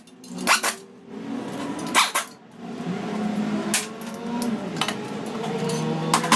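A few sharp metallic clinks and knocks of hand tools (ratchet, extension and socket) being handled and fitted on engine bolts, over a low steady hum.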